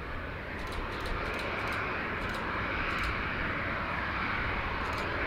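Twin Pratt & Whitney Canada PW615F turbofan engines of a Cessna 510 Citation Mustang on its landing roll-out, a steady rushing jet noise that grows gradually louder.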